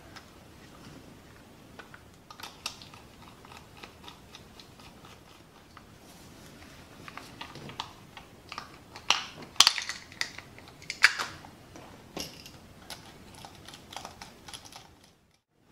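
Hands reassembling a soft toy's plastic electronics housing: irregular light plastic clicks and taps, with a cluster of louder clacks in the middle.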